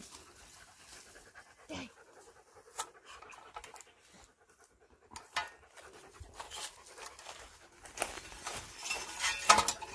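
A dog panting, with a few faint clicks and rustles. Near the end, louder crunching and rustling of dry grass and leaf litter, as from footsteps.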